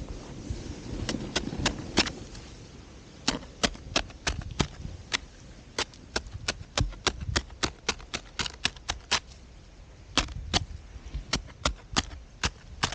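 A ski pole jabbing and tapping at crusty snow around the edge of a hole: a run of sharp, irregular clicks, about two or three a second, with some crunching of snow in the first couple of seconds.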